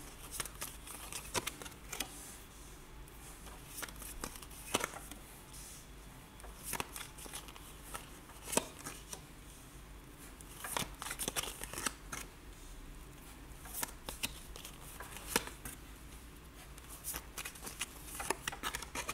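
Oracle cards being drawn from a hand-held deck and laid one at a time onto a cloth-covered table: soft, irregular clicks and slaps of card stock, sometimes two in quick succession, with quiet gaps between.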